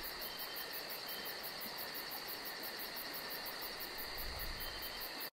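Insects chirping: a rapid, even pulsing of about five or six chirps a second over a steady hiss. It cuts off suddenly at the end.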